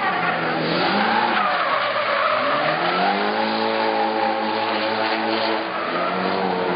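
A drift car sliding sideways with its tyres squealing and smoking, the engine revs held high while it slides. The engine note dips about a second in, climbs again around three seconds, and drops once more near the end.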